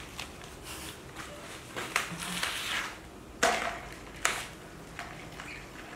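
Scuffling and rustling from a baby monkey scrambling around a plastic bowl on a foam floor mat, with three sharp knocks about two, three and a half and four seconds in.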